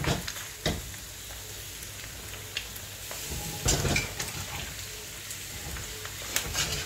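Beef trimmings and chopped onion sizzling in a kazan over a low gas flame while a spatula stirs them, with a few sharp knocks and scrapes of the spatula against the pan, loudest about four seconds in.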